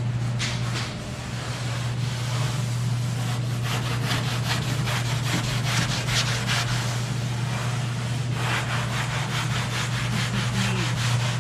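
Sanding on car bodywork being smoothed: back-and-forth rasping strokes, several a second, over a steady low hum.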